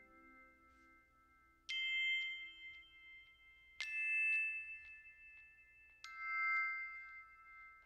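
Background music of three struck, bell-like chime notes about two seconds apart, each ringing on and fading away.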